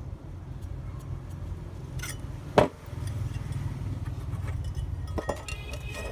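Light clinks of small hard objects being handled, with one sharp knock about two and a half seconds in, over a steady low hum.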